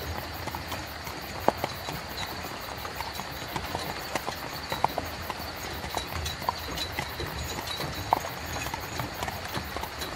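Horse-drawn carriage: horse hooves clip-clopping over the steady low rumble of rolling cart wheels, with a few sharper knocks.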